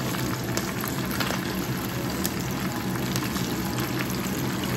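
Hot oil sizzling around a whole fish frying in a pan: a dense, steady hiss spattered with many tiny pops and crackles.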